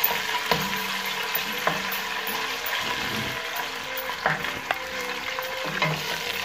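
Tomato paste frying in hot oil in a stainless steel pot, sizzling steadily while it is stirred with a wooden spoon. A few sharp knocks as the spoon hits the pot.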